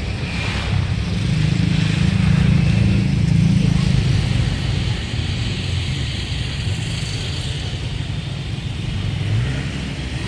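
Road traffic on a street at night: a motor vehicle's engine and tyres rumble as it passes close by and swells for a few seconds, then steady traffic noise, with another small swell near the end.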